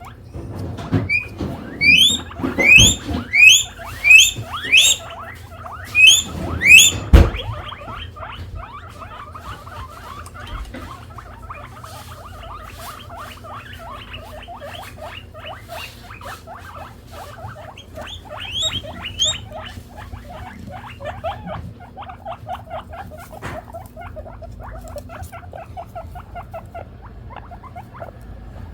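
Guinea pig wheeking: a run of loud, rising squeals repeated about twice a second for the first seven seconds, the call of a hungry guinea pig begging for food. A single thump comes about seven seconds in, then a long run of softer, quick short sounds, with two more squeals about two-thirds of the way through.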